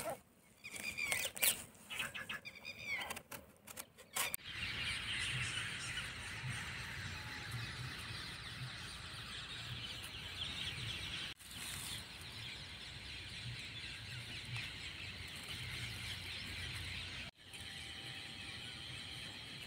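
Birds chirping in short calls for the first few seconds, then a steady outdoor hiss with soft low rumbling that drops out briefly twice.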